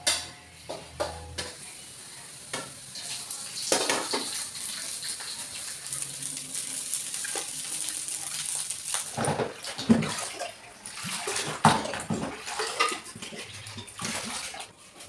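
Fried rice hissing in an aluminium wok as a metal spatula stirs and scrapes it, then metal utensils and dishes clanking and knocking.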